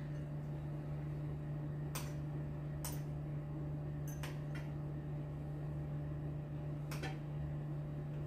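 Spoon and fork lightly clicking against a glass bowl and plate a few times while eating, over a steady low electrical hum.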